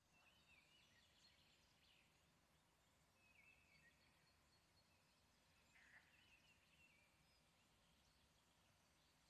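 Faint birdsong, short whistled calls and phrases coming every second or two, over a very quiet background.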